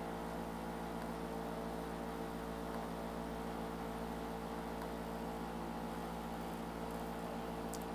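Steady low electrical hum with a faint hiss: the background noise of the narration microphone during a pause.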